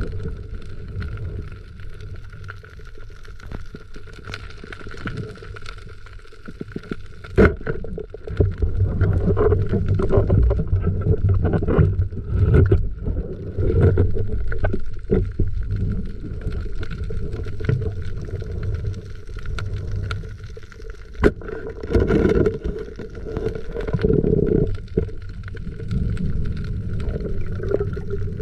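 Underwater noise heard through a submerged action camera: water sloshing and rumbling against the housing as the diver swims, with scattered clicks, a steady whine, and two sharp knocks, about seven seconds in and about twenty-one seconds in.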